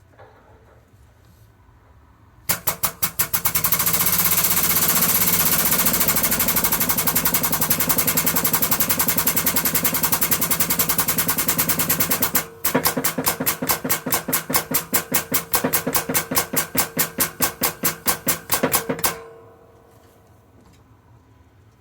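Air-powered shop press cycling in rapid clattering strokes as it pushes a bearing into its bore. It runs continuously, breaks off for a moment, then comes back as distinct strokes about four a second before stopping.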